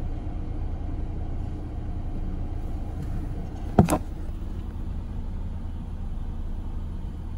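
Car engine idling, a steady low rumble heard from inside the cabin, with one sharp knock a little under four seconds in as the phone recording is handled.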